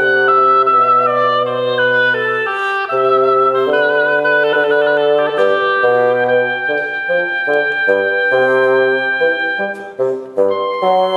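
Oboe and bassoon duet: the oboe plays a quick, stepping melody over longer held bassoon notes, with a brief break near the end.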